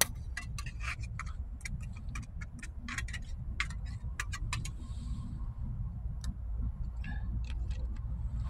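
Irregular light clicks, a few a second, over a steady low rumble.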